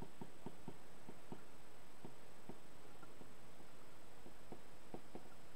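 A stylus tapping and ticking on a tablet screen while handwriting: about a dozen light, irregular clicks as the pen strokes out a word.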